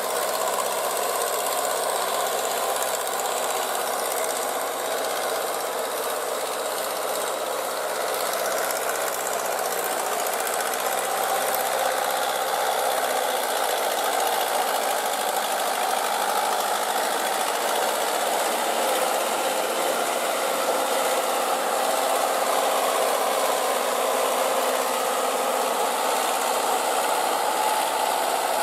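Mahindra tractor's diesel engine running steadily under load with a clattering knock, as the cage wheels churn the tractor through a flooded paddy during puddling.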